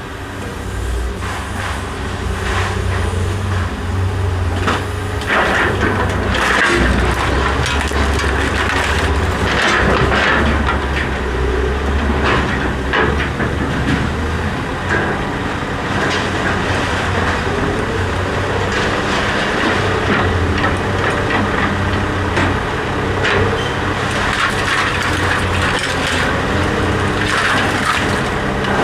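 Refrigerator being pried and broken apart for scrap: repeated metal knocks, clanks and cracking, over a steady low engine-like hum that is strongest in the first half.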